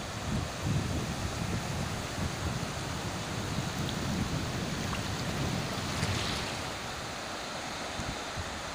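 North Sea surf washing in over a shallow sandy beach, a steady hiss of breaking waves, with wind buffeting the microphone in gusts until a little past six seconds in.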